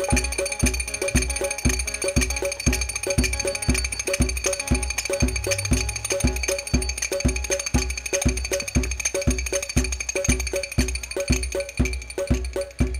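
Qawwali ensemble playing an instrumental passage without singing: drums keep an even beat of about two and a half strokes a second under a single high note held unbroken.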